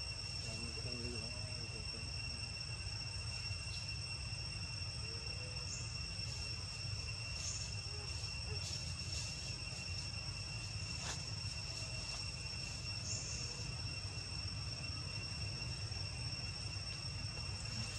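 Forest insects making a steady high-pitched drone at two pitches, with a few short faint high chirps on top and a low rumble underneath.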